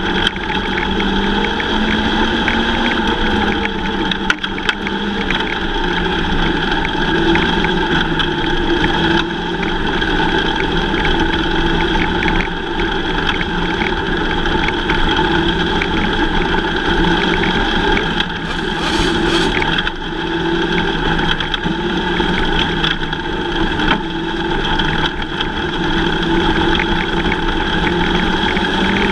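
A field of Lightning sprint cars racing, their engines running continuously, with the pitch rising and falling as they go around the track.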